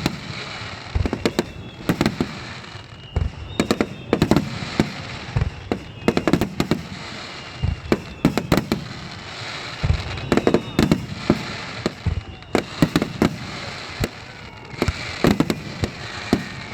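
Rapid-fire aerial firework shells bursting close by, several loud bangs a second over a constant crackle, with faint rising whistles from shells on their way up.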